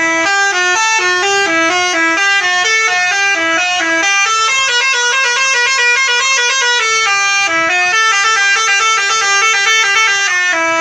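Bus telolet horn, a Basuri multi-tone air horn, playing a fast, loud tune of short stepped notes without a break; a few seconds in, the lowest notes drop out and the tune carries on higher.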